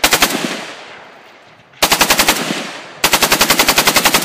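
Machine gun firing three bursts of full-auto fire, about twelve shots a second: a short burst at the start, a longer one about two seconds in, and the longest from about three seconds in. Each burst echoes after it stops.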